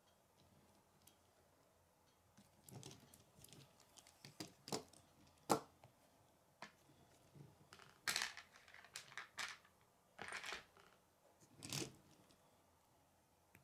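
Plastic K'nex pieces clicking and rattling as they are handled and fitted by hand: scattered quiet clicks and short rustles, the sharpest about five and a half seconds in.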